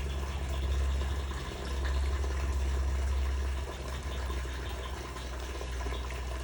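Water running or trickling over a low rumble that swells and eases twice.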